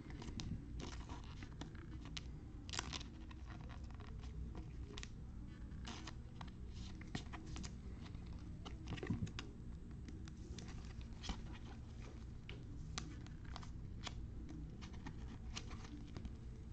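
Trading cards being handled: scattered light clicks and scrapes of card stock sliding and flicking, over a steady low hum.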